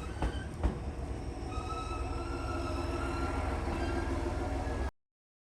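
Train running, with a few sharp clicks in the first second and a steady high-pitched squeal joining about one and a half seconds in. The sound cuts off abruptly about five seconds in.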